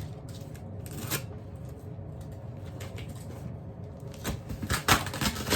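A package and its contents handled by hand: scattered small rustles and clicks, with a cluster of louder ones near the end.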